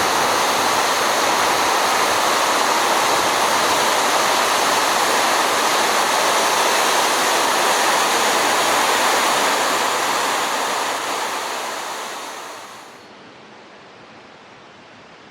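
Waterfall, a loud and steady rush of falling water, which fades out over a couple of seconds toward the end to a faint hush.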